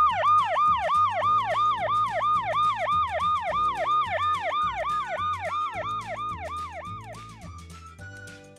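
Electronic siren sound, a rapid repeating wail that falls in pitch about three to four times a second, fading out and stopping about seven and a half seconds in.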